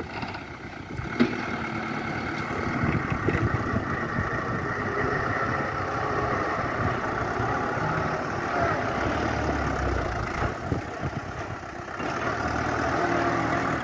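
Diesel engine of a loaded light dump truck running at low revs as the truck manoeuvres, with one short sharp knock about a second in.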